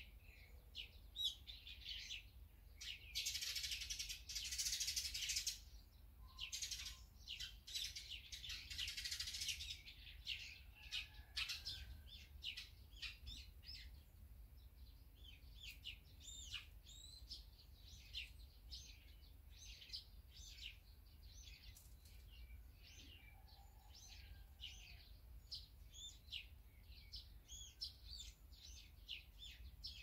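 Small birds chirping, many short high calls in quick succession. There are two denser stretches of harsh, noisy calling, about three seconds in and again about eight seconds in.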